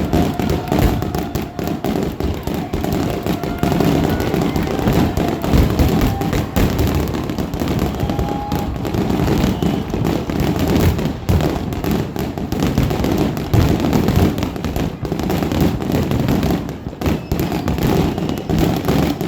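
Aerial fireworks bursting in a dense, near-continuous barrage of overlapping bangs and crackles.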